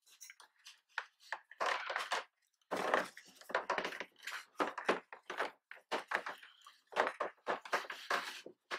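Irregular knocks, thunks and rustling from hands working fittings and wiring on a kayak close to the microphone.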